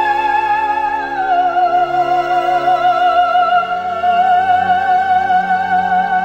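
Music: a long held melody note with vibrato, stepping down in pitch about a second in, over a sustained accompaniment.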